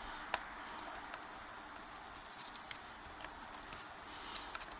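Faint, scattered small clicks of a tool working a grub screw out of the metal body of a Yale 850 padlock, over a steady low hiss. The clicks come more often near the end.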